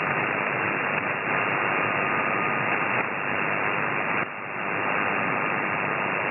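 Amateur radio receiver tuned to the 6-metre (50 MHz) band giving out a steady hiss of noise, with a faint steady whistle underneath and a brief dip about four seconds in. The hiss is the new noise problem on the band.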